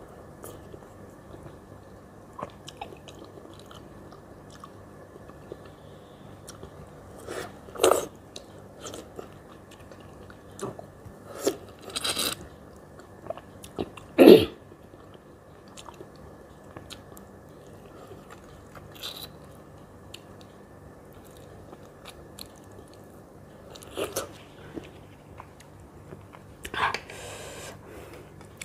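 Eating ripe mango: biting the flesh off mango slices and chewing, in scattered short bursts, the loudest about halfway through.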